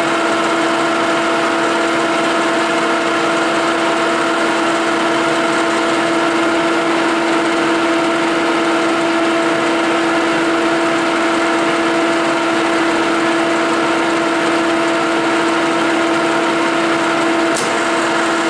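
1956 Herbert No. 4 capstan lathe running steadily, a constant hum with a steady whine from its drive, while a Coventry die head cuts an M20 thread on 20 mm bar. A single sharp click near the end.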